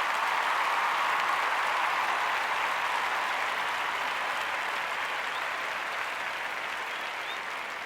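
Crowd applause, a dense even clapping that is loudest about a second in and then slowly fades away.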